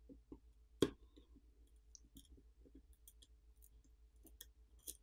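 Faint small clicks and ticks of a thin metal pry tool working under a film and copper tape on a smartphone main board as the film is peeled up, with one sharper click about a second in.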